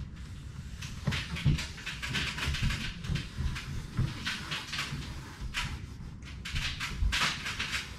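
Hands pressing and rubbing a solar panel down onto a car hood to bed its double-sided tape: a run of irregular scuffing and rubbing sounds with dull knocks.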